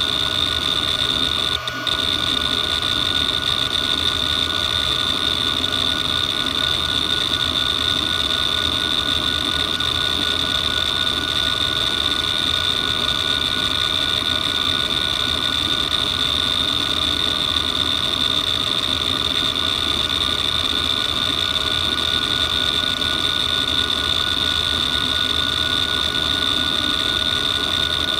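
Western Digital Expert 313600 7200 RPM hard drive running a random seek test: a steady high-pitched spindle whine with a second, lower tone, over the continuous busy chatter of the heads seeking back and forth across the platters.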